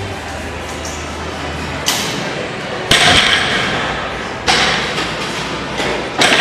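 Heavy knocks of steel barbell plates in a gym: four sharp clanks and thuds a second or more apart, the loudest a deep thud about three seconds in, typical of a loaded bar being set down on a lifting platform.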